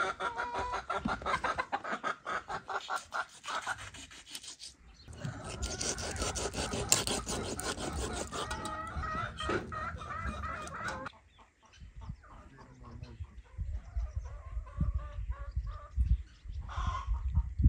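Knife scraping the scales off a large fish in rapid strokes, with chickens clucking over it. The scraping stops about eleven seconds in, leaving a quieter stretch with a few more calls.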